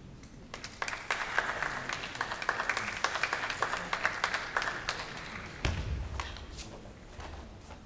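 Scattered clapping from spectators for several seconds, then a single dull thump, typical of a bare foot landing hard on a karate competition mat.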